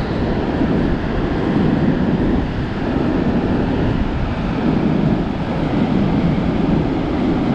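Strong wind rumbling and buffeting on the microphone, with ocean surf washing behind it.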